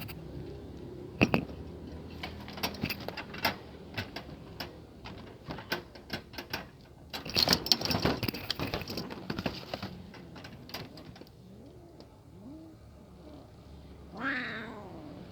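A run of sharp clicks and taps for most of the first ten seconds, then a cat meowing once near the end, a single call falling in pitch.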